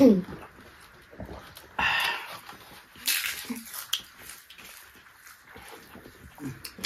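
Close-miked eating and drinking sounds: a few short, noisy bursts of gulping water from a steel tumbler, chewing and lip smacks, with a loud falling mouth sound right at the start.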